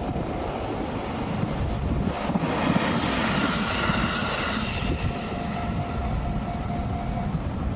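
A train running past: a steady rumble of wheels and running gear, with a faint whine rising out of it around the middle.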